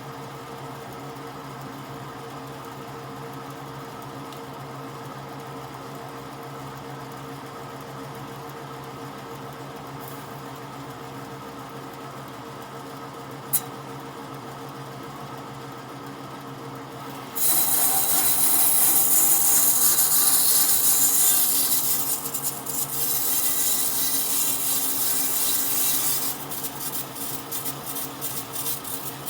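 A woodworking power tool's motor running steadily with a hum, with one sharp click partway through. About two-thirds of the way in, a loud rasping, hissing noise starts as the tool bites into the wood, cutting or sanding it. This noise then continues unevenly to the end.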